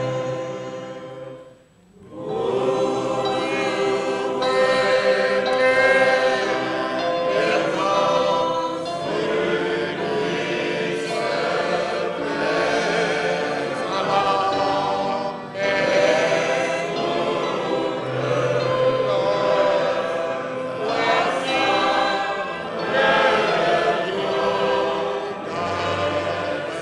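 Many voices singing a church hymn together in several parts. The singing breaks off briefly about two seconds in, then goes on.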